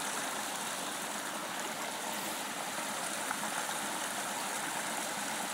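A creek running steadily: an even, unbroken rush of flowing water.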